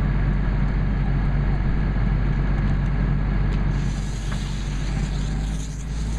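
Fire engine's engine running steadily beside the burning minivan. About two-thirds of the way in, a hiss comes in as the hose stream hits the fire and turns it to steam.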